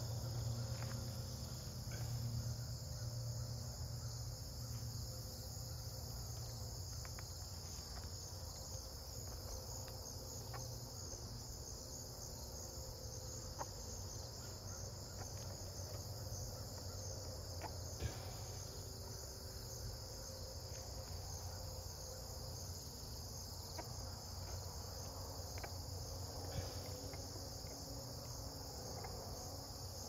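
Insects chirring in a steady, high, continuous trill, with a low hum underneath and a few faint clicks.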